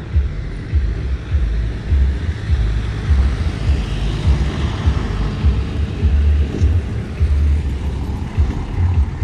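Street traffic noise, with a vehicle passing about four seconds in, swelling and then fading, over a low, uneven rumble.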